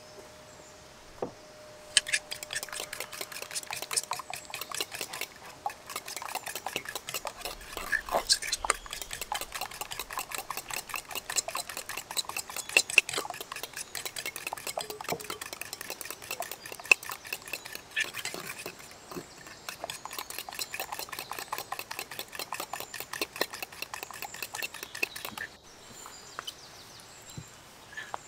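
Spoon beating oil in a small metal bowl: rapid clinking of the spoon against the bowl. It starts about two seconds in and stops suddenly near the end.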